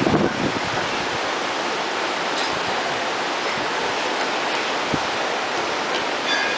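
Steady rush of a fast mountain river, the Alaknanda, as an even hiss of flowing water, with a brief low rumble at the very start.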